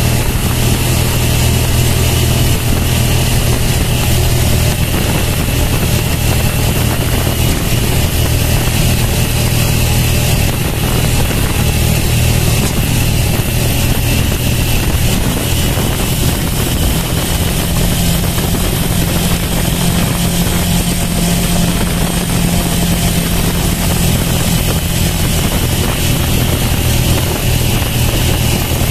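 Motorcycle engine running steadily while riding, with a constant hiss of wind and road noise; the engine note shifts slightly about halfway through.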